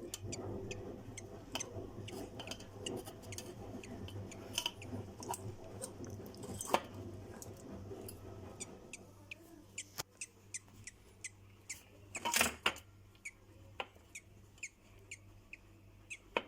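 Newly hatched budgerigar chick peeping: many short, high squeaks at irregular intervals, with a louder burst about twelve seconds in, over a steady low hum.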